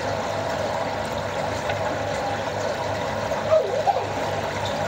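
Water sloshing and splashing in a plastic bucket as hands work through it to catch a fish, over a steady trickle of water, with two sharper splashes about three and a half seconds in.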